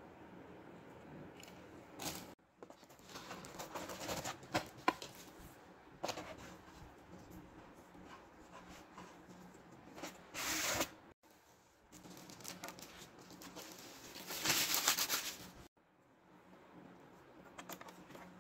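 Hands handling unboxing packaging and parts: rustling of plastic wrap and scraping and rubbing of a moulded pulp-fibre tray and cardboard. It comes in several bursts of a second or two, the loudest about ten and fourteen seconds in, some cut off suddenly.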